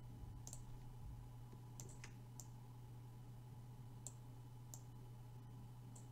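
Faint computer mouse clicks, about six of them at uneven intervals, over a low steady hum.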